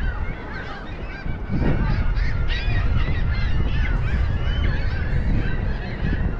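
Many birds calling at once, a dense run of short overlapping calls, with wind rumbling on the microphone.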